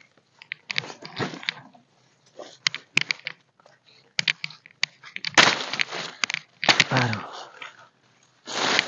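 Undergrowth being cleared by hand: leaves rustling and plant stems cracking and snapping in irregular bursts.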